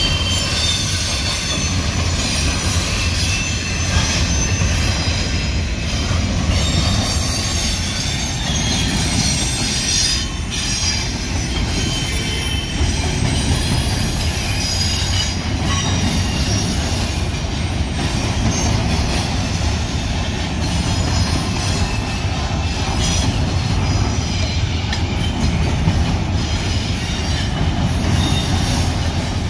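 Union Pacific double-stack intermodal freight train's cars rolling steadily past, steel wheels on the rails giving a continuous low rumble with thin, high wheel-squeal tones above it.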